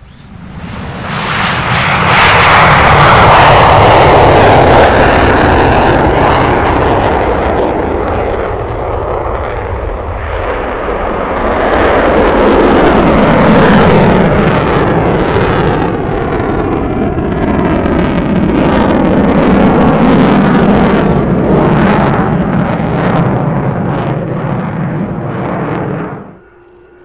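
JASDF F-15DJ Eagle's twin turbofans running on afterburner through a takeoff and climb, a very loud roar. Its pitch falls twice as the jet passes, and it turns into a harsh crackle later on. The roar cuts off suddenly near the end.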